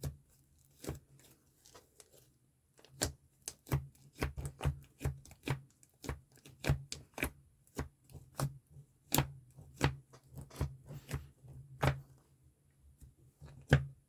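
Slime being squeezed and stretched by hand, giving off irregular sharp clicks and small pops, several a second, sparse at first and busier from about three seconds in.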